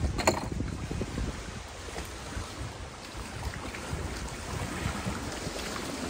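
Wind gusting across the microphone and wind-driven lake waves washing against a rocky shore, with one short click just after the start.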